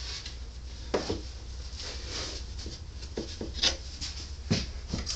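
Raccoon pelt being worked onto a wooden fur stretcher board: fur and skin rubbing on the wood, with a few light knocks scattered through.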